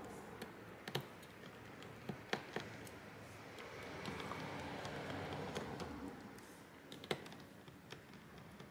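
Precision screwdriver backing small screws out of a phone's midframe: scattered light clicks and ticks, a sharper one about seven seconds in.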